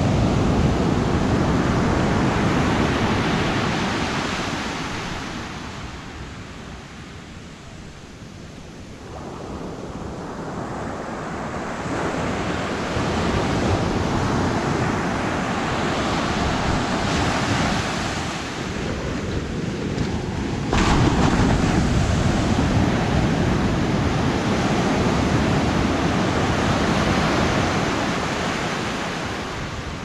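Ocean surf breaking and washing up over a flat sandy beach. The hiss of the waves swells and ebbs, fading low a few seconds in, building back, then jumping sharply louder about 21 seconds in.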